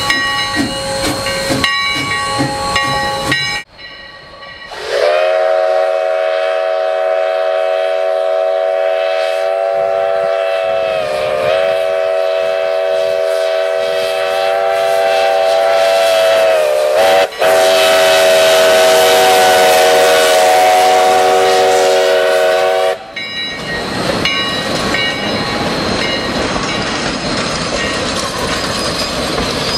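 Sierra Railway No. 3, a 4-6-0 steam locomotive: a few seconds of rhythmic ringing, then a long steam whistle blast of several notes together, held for about eighteen seconds and sagging briefly in pitch twice. After it the train runs past with hissing steam and wheels clattering on the rails.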